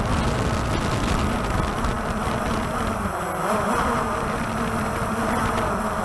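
Walkera TALI H500 hexacopter's rotors buzzing steadily, heard from the drone's own camera, over a low, uneven rumble of wind on the microphone.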